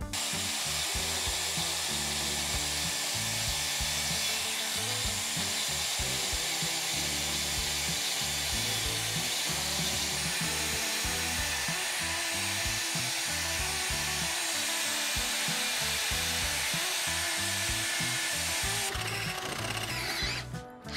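DeWalt angle grinder with a wire cup brush scouring rust off the cast-iron leg of an old leg vise, a steady, harsh hiss. Near the end it changes to a cordless drill spinning a wire brush inside the leg's eye.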